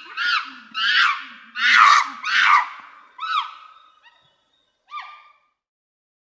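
Monkey calls from a sound-effect recording: a string of high-pitched screeching calls, each swooping up and then down in pitch, loudest about two seconds in, then fading away to a last short call about five seconds in.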